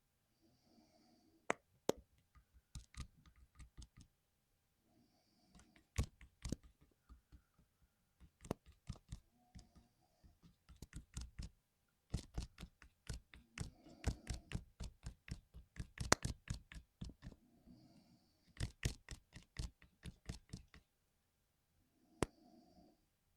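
Mechanical keyboard parts being handled: quick irregular runs of sharp plastic clicks and light knocks, with a few brief soft scrapes between them.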